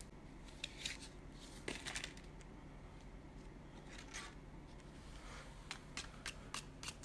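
Playing cards being grabbed and handled by a small child's hands: faint, brief clicks and paper rustles here and there, coming closer together near the end.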